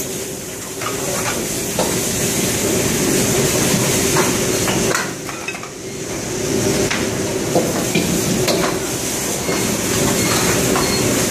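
Busy commercial wok range: gas burners and extraction running steadily, with metal ladles repeatedly clanking and scraping against woks and food sizzling.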